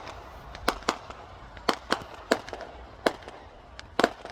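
Fireworks going off: a string of sharp bangs at uneven intervals, about eight in four seconds, with a close pair near the end.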